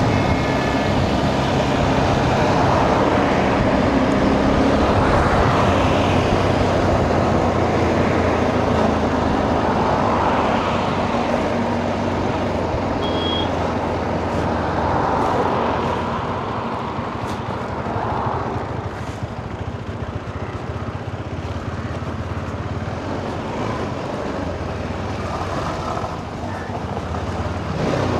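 Motorcycle engine running at road speed with wind rushing over the microphone and traffic around it. The sound gets a little quieter about halfway through.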